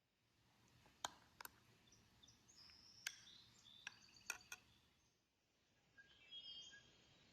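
Faint bird chirps, with a handful of sharp clicks between about one and four and a half seconds in.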